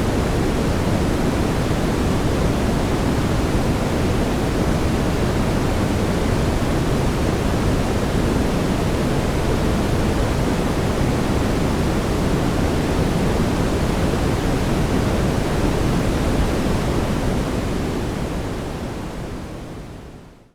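Steady brown noise: an even, unbroken rush weighted toward the low end, fading smoothly out near the end.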